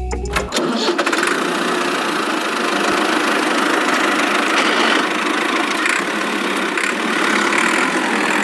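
A motor running steadily with a dense, rattly sound, coming in about half a second in.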